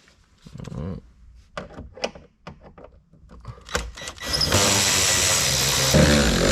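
A few light clicks and handling knocks, then about four and a half seconds in a cordless drill/driver starts and runs steadily, its motor pitch wavering a little under load as it spins out a T15 Torx trim-panel screw.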